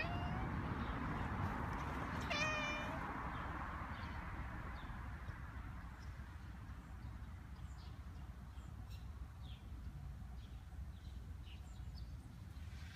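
A cat meows twice: a short rising meow right at the start and a longer meow about two and a half seconds in. After that there is only faint outdoor background.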